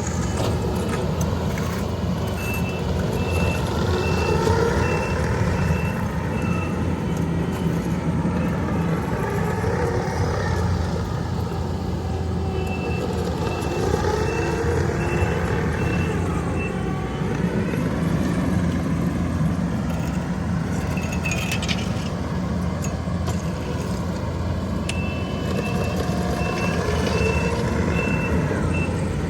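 Diesel engines of heavy paving equipment running, with a reversing alarm beeping in three spells of steady, evenly spaced beeps (about two seconds in, near the middle and near the end) as a machine backs up.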